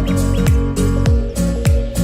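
Background music with a steady beat: deep bass kicks that drop in pitch, sharp percussion hits between them, and held synth notes.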